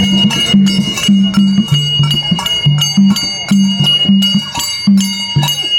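Music: a steady high held tone over a low melody that steps between two notes, with sharp percussion strikes about twice a second.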